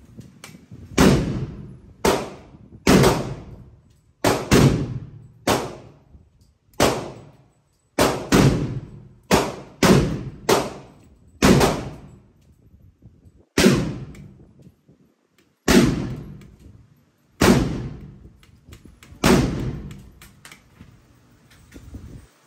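Gunfire: about eighteen sharp shots at irregular intervals, some close together and others about two seconds apart, of varying loudness, each with a short echoing tail.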